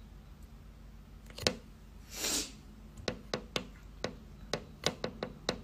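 A breath, then a string of about eight short, soft clicks spaced unevenly over the last few seconds.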